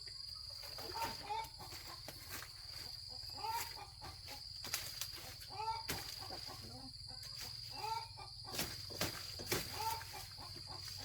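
Chickens clucking again and again, with several sharp knocks about midway and near the end: a machete chopping sugarcane stalks.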